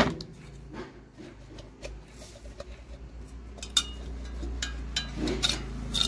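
Stainless-steel mixer jar and blade assembly being handled and turned by hand to check that the newly fitted bush lets the shaft move freely, with a few light metal clinks and knocks and some rubbing; the shaft turns slightly tight.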